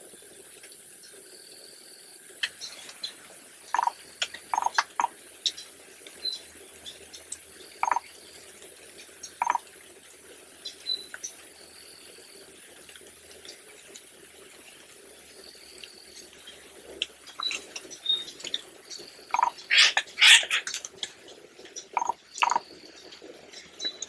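Rainforest ambience: a steady high hiss, a short, level high-pitched tone repeating every few seconds, and scattered sharp clicks and snaps that come thicker and louder about three-quarters of the way through.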